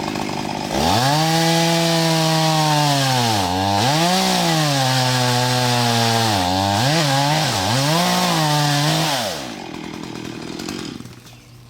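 Chainsaw revving up from idle and cutting into a tree, its engine pitch sagging and recovering each time the chain bogs in the wood. Near the end it drops back toward idle.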